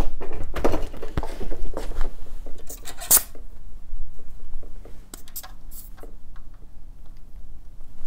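Handling noises of a road bike being moved and a floor pump's hose being fitted to the tyre valve: scattered clicks, light knocks and rattles, with brief hissy noises about three and five seconds in.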